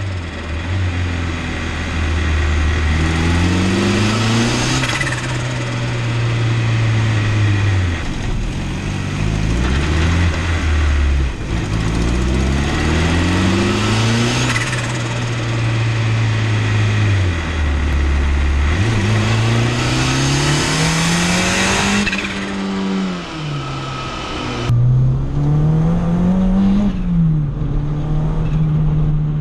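Turbocharged Honda Civic's B-series four-cylinder engine accelerating hard through the gears, its pitch climbing and dropping back several times. Near the end it is heard from inside the cabin.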